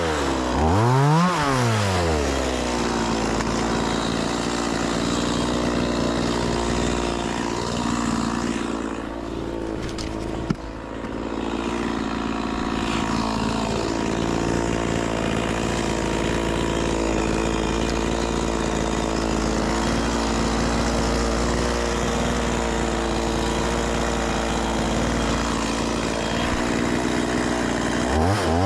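Stihl MS 180 C-BE two-stroke chainsaw: it comes off a cut with the revs wavering and dropping, then idles steadily for most of the time, and is throttled up again into a cut at the very end. A single sharp knock is heard about ten seconds in.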